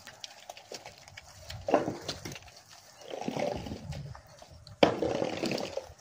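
Cattle moving about in a wet, muddy pen, their hooves squelching and splashing in the mud in irregular bursts. The loudest comes suddenly about five seconds in.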